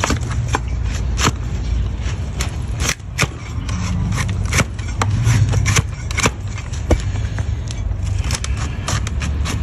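A sharp hoof knife cutting and scraping a donkey's hoof horn, giving quick irregular cracks and clicks, several a second, over a steady low rumble.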